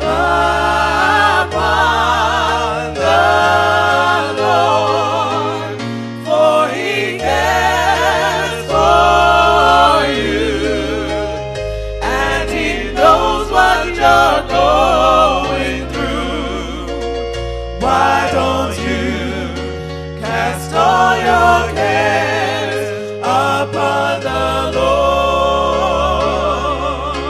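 Gospel music: a song with several singing voices, their held notes wavering with vibrato over sustained low notes.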